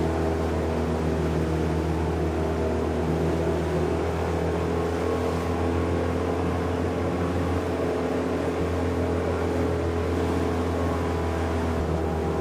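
Tour catamaran's engine running steadily under way: a constant low drone with a rush of water and wind over it.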